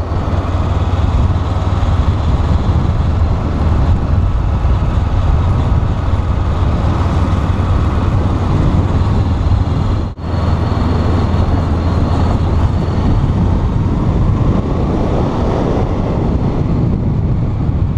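Honda CBR500R's 500 cc parallel-twin engine running while riding, a steady low drone mixed with wind noise on the helmet-mounted microphone. The sound drops out for a split second about ten seconds in.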